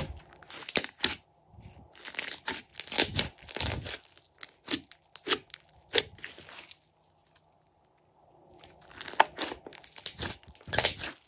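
Hands squeezing, folding and pressing a large blob of glossy slime, giving bursts of wet crackling and popping. There is a pause of about a second and a half a little past the middle.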